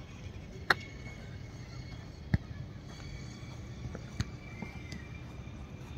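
A football being kicked: three sharp thumps of boot on ball about a second and a half apart, with a few fainter knocks between, over a steady low background rumble.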